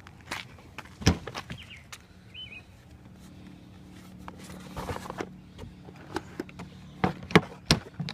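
Irregular knocks and clicks, loudest about a second in and again near the end, over a faint steady low hum.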